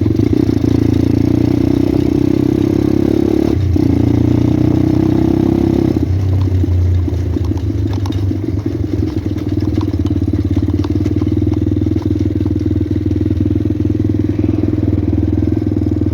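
Pit bike's small single-cylinder engine running steadily under way, with a brief dip in the note about three and a half seconds in and a change in tone around six seconds.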